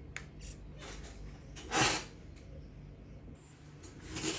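Faint clicks of small carburetor choke parts (plunger, spring, circlip) being handled and fitted, with one short, loud breathy rush of noise about two seconds in.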